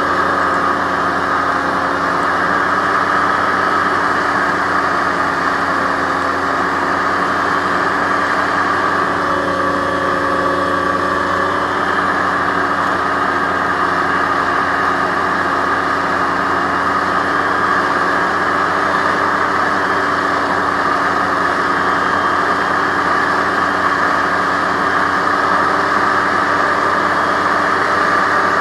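Aerocruiser SA-1100 hovercraft's engine and fans running steadily at cruise, holding a constant pitch.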